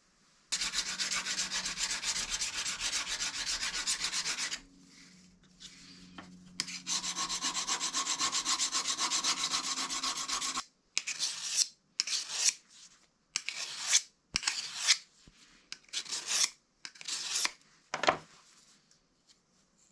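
Steel knife blade being sharpened by hand on a sharpening stone: two runs of fast, even back-and-forth scraping strokes, then a series of slower, separate strokes near the end, which is the honing of a fine final edge.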